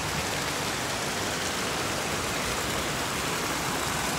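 Rushing water running steadily over granite slabs and small cascades, a constant even rush.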